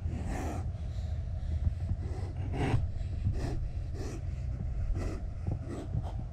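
A man breathing hard close to the microphone: about six short, noisy breaths at uneven spacing, over a steady low rumble.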